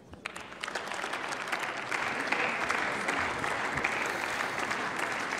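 Many people applauding in a parliament chamber at the end of a speech, the clapping building over the first two seconds and then holding steady.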